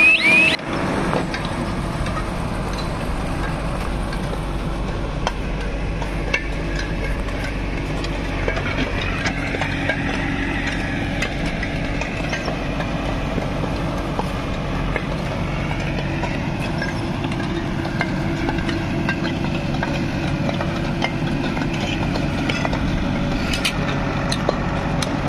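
A backhoe loader's diesel engine running steadily, with scattered light clicks and scrapes over it.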